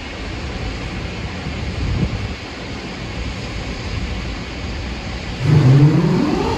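Wind buffeting the microphone over choppy water. Near the end a louder pitched sound rises steadily in pitch.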